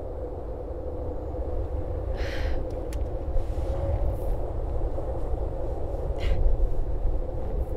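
Steady low rumble of wind with a faint constant hum, and a woman's sharp, distressed breaths, once about two seconds in and again about six seconds in.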